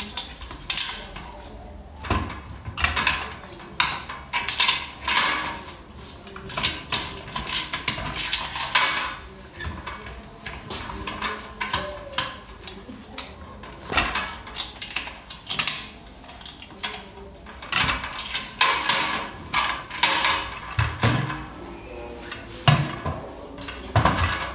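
Irregular metallic clicking and clanking as the cover-tightening nuts and knobs on a stainless-steel autoclave lid are turned and tightened down, sealing the chamber before sterilization.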